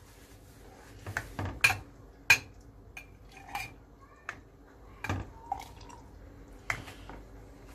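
Steel ladle clinking and scraping against a stainless steel pot of plum jam while jam is ladled out: a handful of sharp, irregular metal clinks, the loudest about two seconds in.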